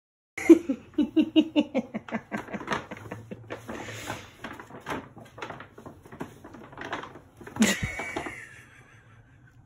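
Brown paper bag crinkling and scraping on a hard floor as a cat moves about inside it. A quick run of sharp crinkles comes first, then softer rustling, then one louder crackle near the end.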